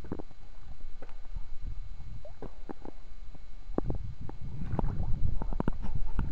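Small lake waves lapping and splashing against a waterproof camera held at the water's surface: a run of sharp little splashes over a low gurgling rumble, growing busier about four seconds in.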